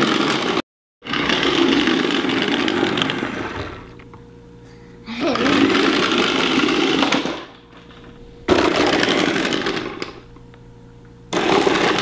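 Remote-control Octonauts Gup-K toy vehicle's small electric motor and gears whirring as it drives across a hardwood floor, in four runs of about one and a half to three seconds with short pauses between. The sound cuts out completely for a moment about a second in.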